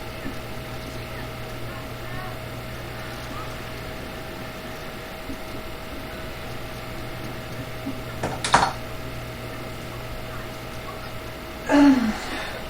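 A person burping from a large bottle of carbonated soda: a short sharp sound about eight and a half seconds in, then a louder burp with a falling pitch near the end. A steady low hum runs underneath.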